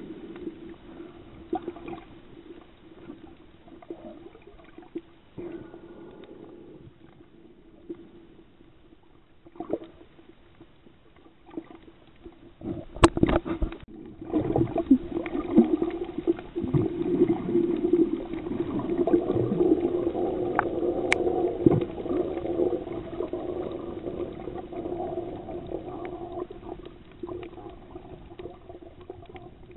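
Muffled underwater sound through a submerged camera: water movement and gurgling bubbles over a low steady hum, growing louder and busier from about halfway through. Two sharp clicks stand out, one just before halfway and one a little after.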